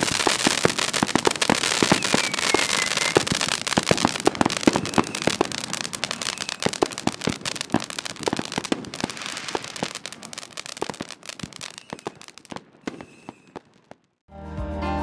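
Dominator Air Aid firework fountain spraying sparks: dense crackling pops over a steady hiss, with a short falling whistle about two seconds in. The crackle thins out and fades away over about twelve seconds as the device burns out.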